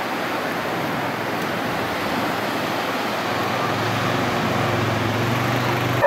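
Street traffic noise, a steady even hiss of passing vehicles, with a vehicle's low engine hum building about four seconds in and cutting off suddenly at the end.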